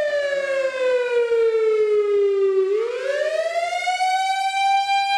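Civil defense warning siren sounding, its tone sliding down in pitch for about two and a half seconds, then winding back up to a high steady tone and holding.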